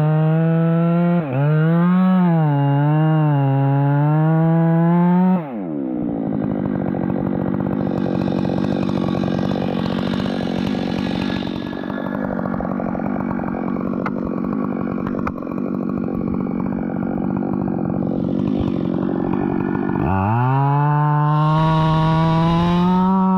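Two-stroke chainsaw at full throttle, its pitch wavering, then dropping into a lower, rougher note as the chain bites into the wood and stays under load for about fifteen seconds, before revving back up to a high steady whine near the end as it comes free of the cut.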